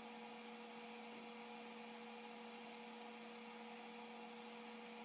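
Faint steady electrical hum with a light hiss, with no other sound: room tone.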